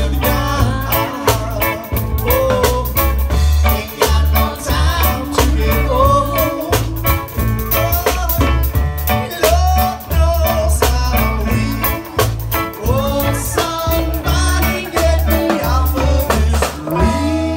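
Live band playing an upbeat song: a singer's voice over electric guitars, drums and bass with a steady beat.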